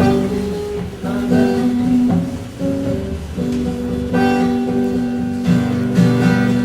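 Acoustic guitar played alone, strummed and plucked chords ringing on in a short instrumental passage with no singing.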